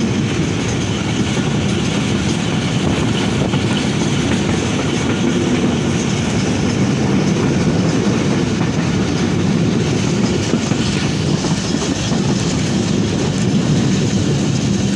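Passenger train running along the track, heard from inside a coach: a steady, loud rumble and rattle of the wheels on the rails.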